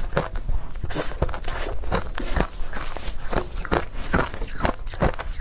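Close-up crunching of ice coated in matcha powder as it is chewed, a steady run of soft crunches about two to three a second.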